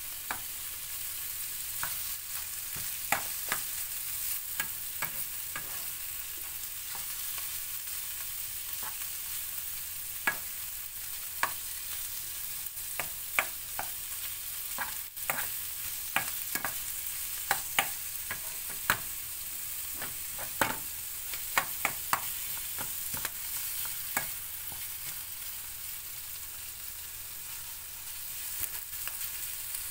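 Tulya clams, onion and celery sizzling in a frying pan while a metal spoon stirs them: a steady frying hiss with scattered sharp clicks and scrapes of the spoon against the pan, busiest from about three to twenty-four seconds in.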